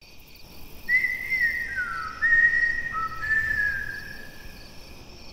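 A short whistled tune of a few notes, sliding downward between several of them and fading out after about four seconds, over steady cricket chirping.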